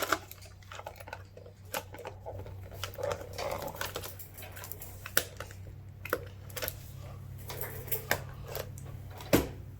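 Irregular small clicks and taps of a phone and a small tool being handled, with one sharper click near the end, over a low steady hum.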